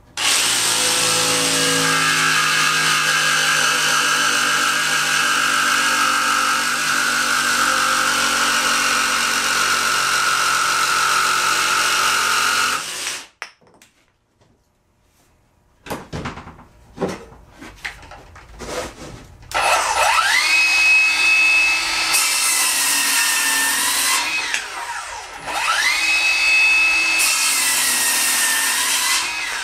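Ryobi 18-volt One+ brushless cordless power tool running loud and steady for about thirteen seconds, typical of a cut through wood. A few clicks follow, then the motor is run twice with no load, each time spinning up to a steady high whine and winding back down.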